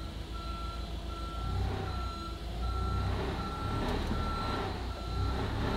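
Forklift reversing alarm beeping at an even pace, about one beep every three-quarters of a second, over the forklift's engine running. The engine grows louder about a second and a half in as the forklift backs up and takes up the pull on the chain straightening the car's rear firewall.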